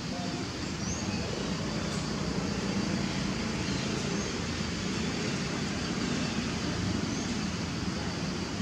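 Steady outdoor background noise, a low rumble with a hiss over it, of the kind distant road traffic makes. Two faint short high chirps come through it, about a second in and again near the end.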